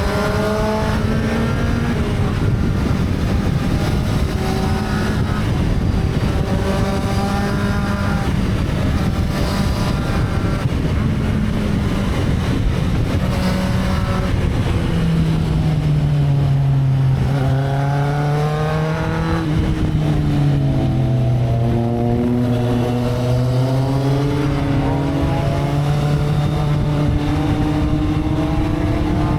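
Sport motorcycle engine accelerating through the gears. The pitch climbs and drops back again and again at each upshift. About halfway through the revs fall away slowly, then climb again in steps.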